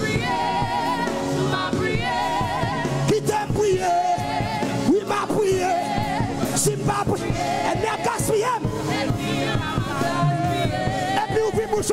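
Live gospel worship singing: singers on microphones leading a congregation over musical accompaniment, with continuous wavering, vibrato-laden melody lines.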